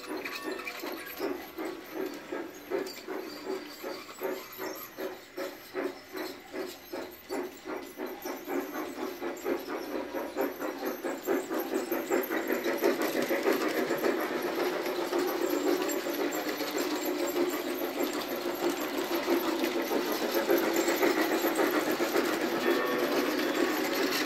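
Steam chuffing from the PIKO AT&SF G-scale steam locomotive's onboard sound system, an even beat of about two chuffs a second over a hiss, with the model's wheels running on the track. It grows louder and denser about halfway through as the locomotive comes close.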